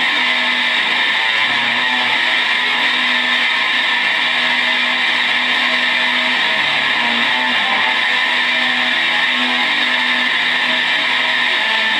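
Heavily distorted electric guitar played as noise music: a loud, unbroken wall of harsh hiss with held low notes shifting underneath every second or two.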